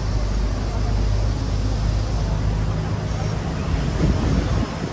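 Double-decker tour bus engine running at low speed, a steady low hum, with wind and road noise rushing past the microphone on the upper deck. A louder rush of noise comes about four seconds in.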